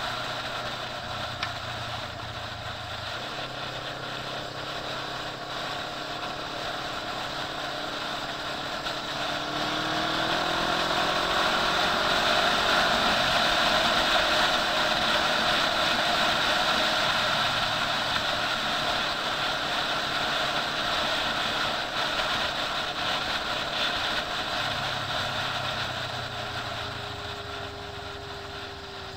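Motorcycle engine running at road speed with wind rushing over the on-bike camera microphone; the engine pitch rises about ten seconds in and the sound grows louder, then eases toward the end.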